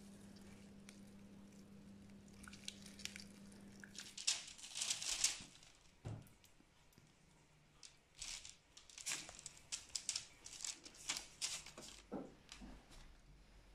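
Crinkling and rustling of baking paper and a gauze cloth in short irregular bursts, as pressed grated-coconut pulp is shaken out of the gauze onto the paper. A faint steady low hum stops about four seconds in.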